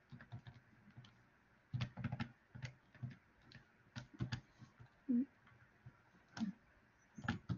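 Faint, irregular clicks of calculator keys being pressed as a division is keyed in. A short low hum comes about five seconds in.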